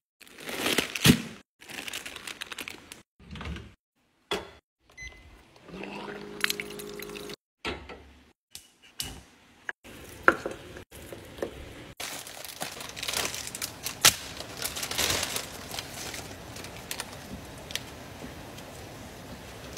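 Cooking sounds cut together: plastic instant-noodle packets crinkling and rustling as they are handled, with a brief low hum about six seconds in. From about twelve seconds in, a steady hiss of water boiling in a pan runs under sharper crinkles and clacks as the Buldak ramen packet is handled and the noodle block goes into the water.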